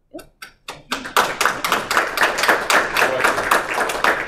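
Audience applauding: a few scattered claps at first, then steady clapping from about a second in.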